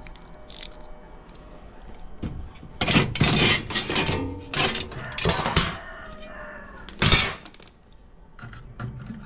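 A rusty sheet-metal panel on an electric furnace cabinet being pulled free and handled: a run of scrapes and metallic clanks, loudest around the middle.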